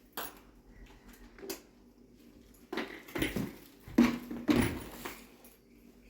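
Short vocal sounds from a dog, several brief calls one after another, the loudest two about half a second apart past the middle.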